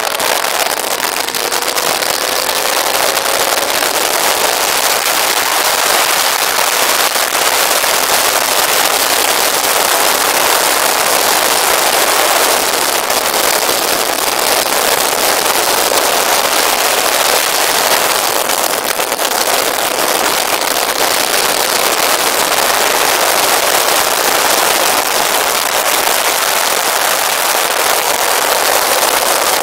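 Heavy wind noise buffeting the microphone of a Yamaha FZS600 at track speed: a steady, loud rushing that all but hides the bike's inline-four engine. A faint rising engine note shows through in the first few seconds.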